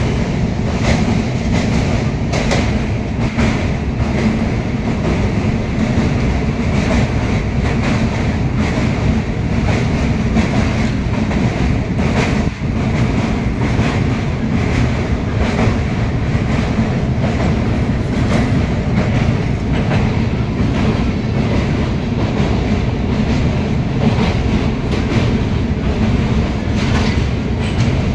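Passenger train running over a steel truss bridge, heard from inside the carriage: a steady, loud rumble of wheels on rails with scattered clicks and clatter.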